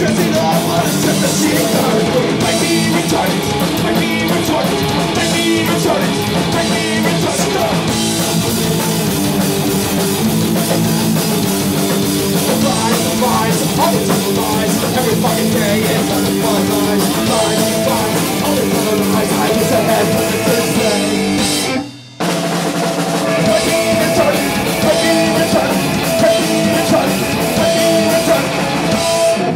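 Punk rock band playing live: electric guitar and drum kit. About two-thirds of the way in, the band stops dead for half a second, then comes back in. The song ends near the close.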